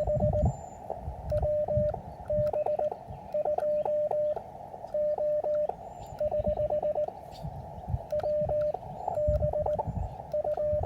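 Morse code (CW) from an Elecraft KX3 transceiver: a single tone of about 600 Hz keyed in dots and dashes, in groups with short gaps, over steady receiver hiss that is cut off above about 1 kHz by the narrow CW filter. Low, irregular thumps run underneath.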